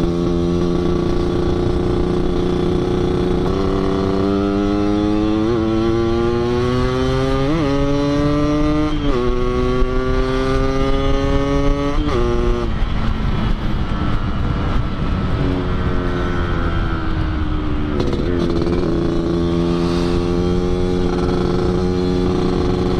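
Yamaha RX-King 135 single-cylinder two-stroke with an under-belly 'kolong' exhaust set up for a deep growly 'ngorok' note, ridden hard through the gears. The engine note climbs and drops sharply several times in the first half as it shifts up, then settles to a steadier run.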